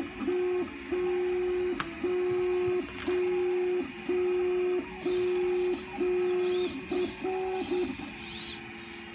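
Hobby servo turning a 3D-printed robot neck in steps, giving a steady electric whine that switches on for under a second and pauses, about once a second, eight or so times before stopping. It is running off a 9-volt battery, which slightly strains the Arduino driving it.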